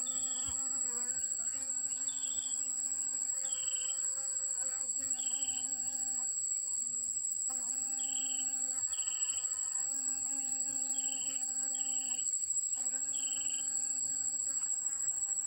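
A steady high-pitched insect drone, with an intermittent low buzzing hum that comes in bouts of about a second, each bout starting with a short high chirp.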